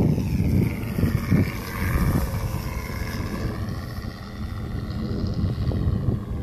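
Radio-controlled P-51 Mustang model flying past, its Benedini sound module playing a simulated engine note together with propeller noise; the pitch rises, then slides down as it passes. Wind buffets the microphone.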